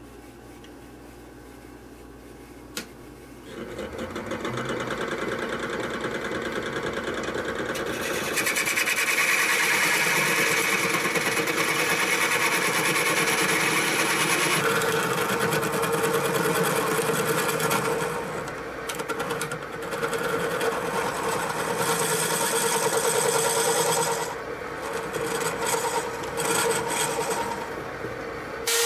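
Wood lathe switched on with a click and running up a few seconds in, then a turning tool cutting into the foot of a spinning maple bowl. The cutting noise comes and goes, easing off briefly twice near the end.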